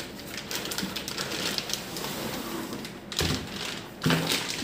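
Clear plastic wrapping crinkling and rustling as a boxed motorcycle top case is handled and lifted out of its carton, with two louder rustling bursts about three and four seconds in.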